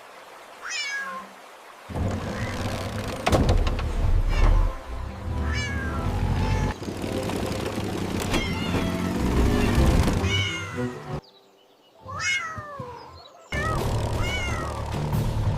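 Cats meowing again and again over background music, about a dozen short meows. The music drops out twice, once at the start and once near the end, leaving the meows on their own.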